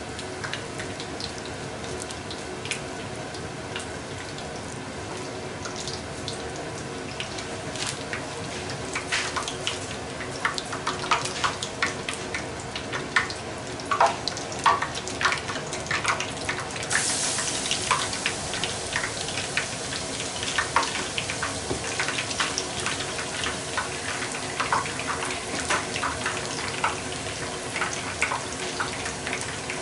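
Shrimp tempura sizzling in hot oil in a small frying pan, a steady hiss with crackling pops. The pops grow busier about eight seconds in, and the sizzle turns louder and brighter about halfway through as the battered shrimp fries in the oil.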